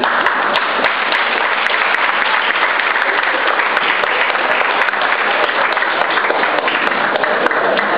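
Audience applauding steadily throughout, a dense patter of many hands clapping.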